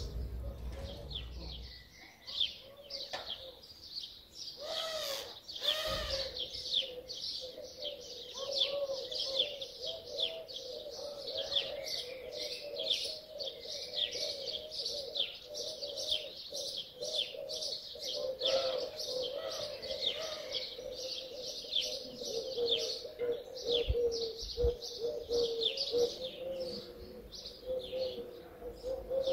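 Many small birds chirping rapidly and continuously in short, high chirps, over a low, steady wavering tone.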